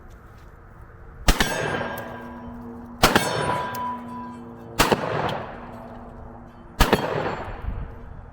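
Four shotgun shots fired one after another about two seconds apart, each followed by the ringing clang of a struck steel target.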